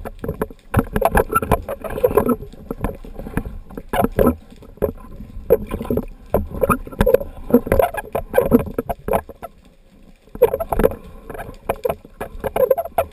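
Water splashing and sloshing against an underwater camera housing near the surface, in irregular bursts with a short lull about ten seconds in.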